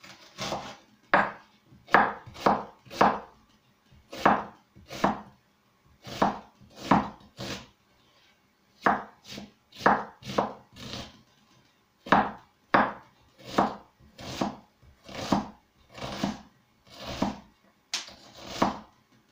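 Kitchen knife chopping a red Tropea onion on a wooden cutting board: an irregular run of sharp knocks, about one or two a second.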